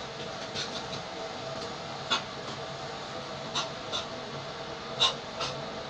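Movement sounds of a person dancing without music: a handful of short taps and knocks over quiet room tone with a faint steady hum.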